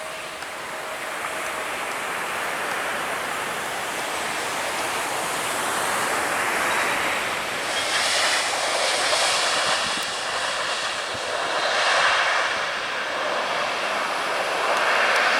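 Jet airliner engines growing steadily louder as the plane draws near, a whine coming in about halfway, over the wash of surf.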